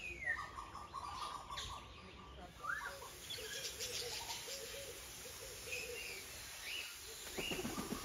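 Mixed birds calling: a falling whistle, then a held whistled note for about two seconds, a quick rising note, a run of lower repeated notes, and short high whistles near the end.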